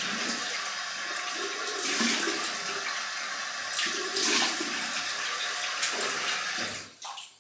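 Bathroom tap running into a sink while a freshly shaved face is rinsed with splashes of water, with a few louder splashes along the way. The water stops near the end.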